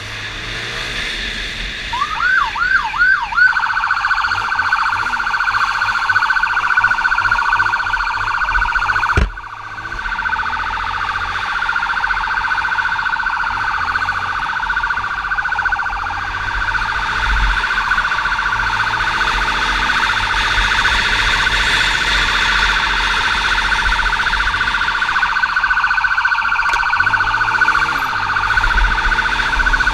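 Police motorcycle siren: four quick rising whoops about two seconds in, then a steady, fast-warbling high wail that cuts out briefly about nine seconds in and comes straight back.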